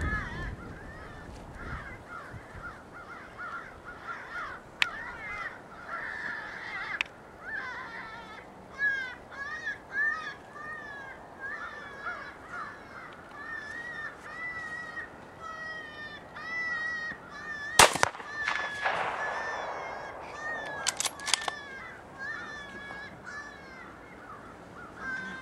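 A single loud gunshot about 18 seconds in, which drops a coyote, followed by a brief echo. It sounds over a string of short, repeated high calls, and a few sharp clicks come about three seconds after the shot.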